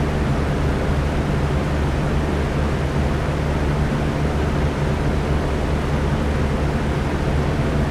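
Electric fan running steadily: a constant whooshing air noise over a low motor hum, with no change in speed.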